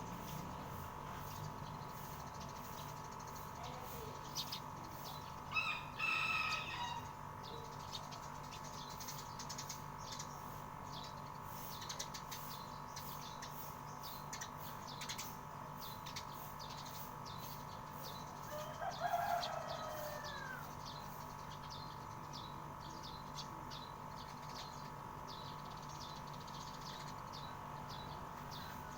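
Birds at a rooftop feeder: many short high chirps throughout, with two louder calls of about a second each, one about six seconds in and one near the middle. A steady hum runs underneath.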